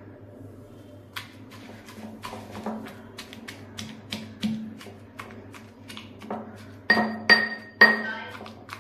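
Pestle pounding and crushing chillies, garlic and tomato in a small mortar: irregular knocks, a few a second, with three louder ringing strikes near the end.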